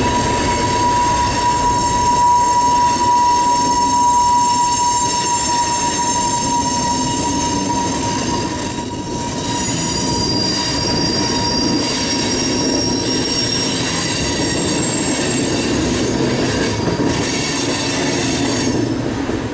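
Freight cars of a mixed manifest train rolling past with a steady heavy rumble, their steel wheels squealing. One strong steady squeal fades out about halfway through, while several shriller squeals come and go above it.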